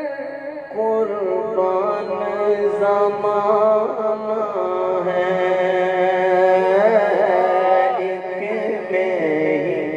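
Male voice singing an Urdu naat in long, drawn-out notes that bend and ornament in pitch, without clear words.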